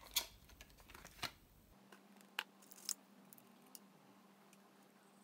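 A handful of faint, sharp clicks and taps, scattered over the first four seconds, as a tube of super glue is handled and uncapped.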